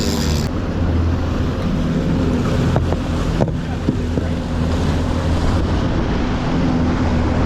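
Boat engine running steadily at trolling speed, a low hum under wind noise on the microphone and water rushing past the hull, with a few light knocks around the middle.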